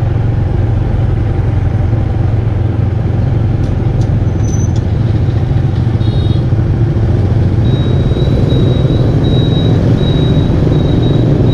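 Street traffic with a steady low rumble of vehicle engines and road noise while moving through town; a faint high-pitched tone comes and goes from about eight seconds in.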